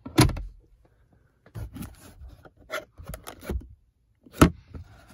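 The glove box lid of a 2021 Cadillac XT5 pushed shut with a thud, followed by scattered light clicks and rubbing from hands on the interior trim, and a sharp click from the sun visor about four seconds in.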